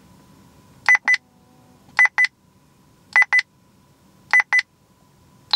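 Escort Passport 9500ci radar detector's power-on self-test tones: four quick double beeps about a second apart, then a single higher-pitched beep near the end.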